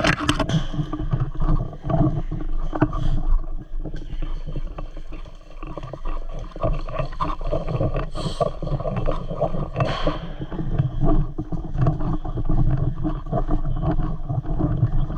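Continuous rustling and handling noise, with scattered clicks and knocks and a few brief louder bursts.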